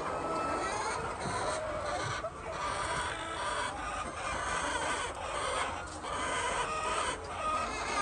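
A flock of hens clucking continuously, many birds calling over one another.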